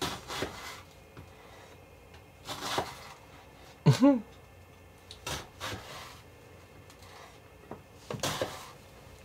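A short voiced exclamation that rises and falls in pitch about four seconds in, amid a few brief rustles and knocks from a small camera and a phone being handled.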